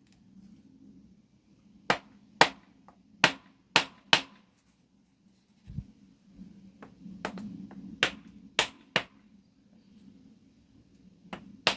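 Hammer blows driving out a stubborn, corroded bolt during an engine removal on a 1982 Honda CB250N: five sharp strikes about half a second apart, a pause, three more, then a single blow near the end.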